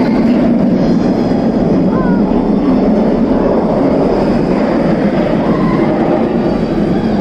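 Steel roller coaster train rumbling steadily along its track overhead, with a faint cry about two seconds in.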